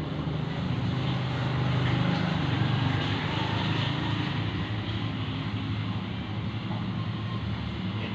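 Steady low rumble of a running engine or motor, swelling slightly a couple of seconds in and then easing off.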